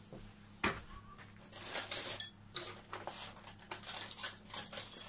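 Metal objects clinking and rattling as they are handled off to one side: a knock, then a busy run of small clinks and rings from about a second and a half in.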